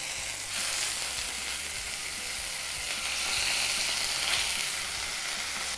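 Beef tenderloin steaks (filet mignon) sizzling in hot oil in a frying pan, a steady hiss that grows louder about half a second in as they are turned onto their raw side.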